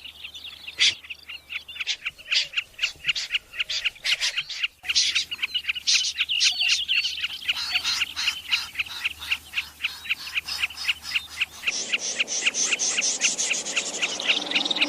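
Recorded bird calls of the kind played as a lure for night net-trapping: fast series of short, high chirps, about six a second, in spliced segments that change abruptly about five and twelve seconds in.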